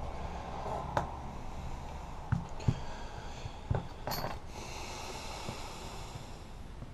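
Light clicks and knocks of hands handling a disassembled iPhone and its removed battery on a workbench, with a brief rustle partway through, over a faint steady hum.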